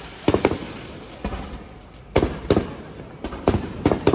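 Aerial fireworks shells bursting in quick succession: about seven sharp booms, some in close pairs, each trailing off in a short echo.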